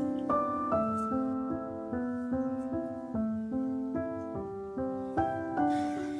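Background piano music: a melody of changing notes over chords.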